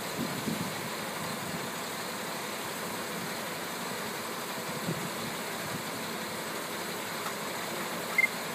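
An engine idling steadily, most likely the crane truck's diesel, with one short, high ping near the end.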